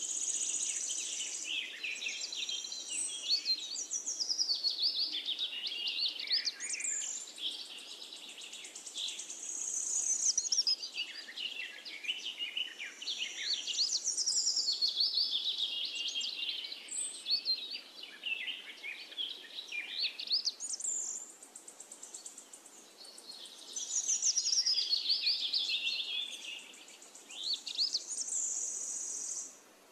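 Birdsong: many small birds chirping and twittering in quick rising and falling phrases, layered over one another, cutting off abruptly at the end.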